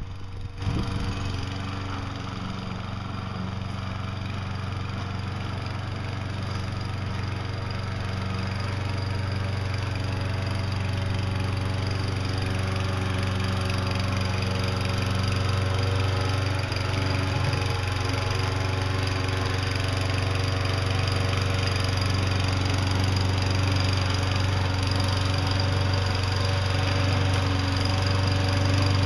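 Small engine of a self-propelled walk-behind lawn mower running steadily under load as the mower pushes snow with a homemade plow blade, growing gradually louder.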